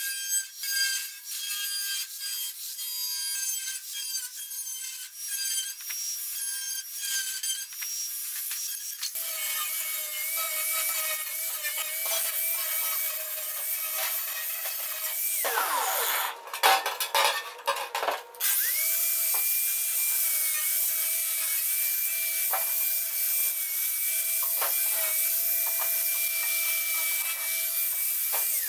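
Angle grinder with a flap disc grinding the edge of a steel plate: a steady whine over a loud grinding hiss. About halfway through the whine sags and breaks off for a couple of seconds, then the grinder spins back up and grinds on steadily. The first third is lighter and choppier.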